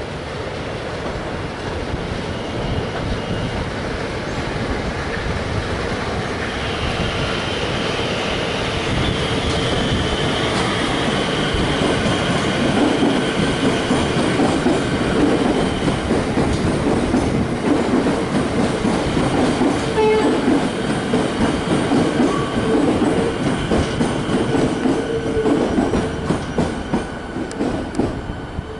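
Melbourne suburban electric multiple-unit train passing slowly at close range, its wheels clicking over rail joints. A thin high squealing tone rides over the rumble through the middle of the pass.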